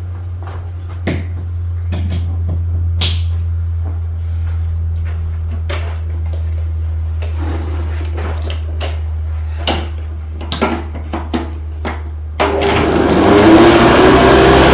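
Scattered clicks and knocks of handling over a steady low hum. About twelve seconds in, a Hoover U4008 Convertible upright vacuum cleaner switches on, its motor spinning up with a rising whine to a loud, steady run.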